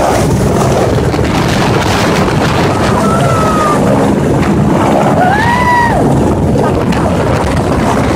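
Helicopter setting down close by: loud, steady rotor and engine noise, with its downwash buffeting the microphone as wind noise.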